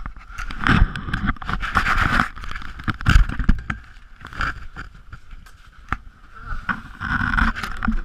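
Tent fabric flapping and rustling in strong wind, with low gusting thumps on the microphone and sharp clicks and scrapes from gear being handled close by.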